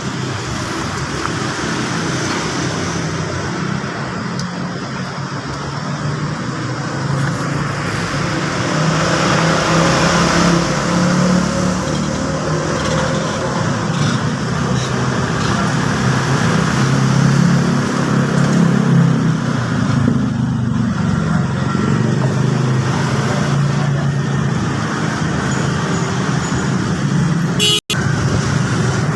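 Small scooter engine running steadily. The sound drops out for an instant near the end.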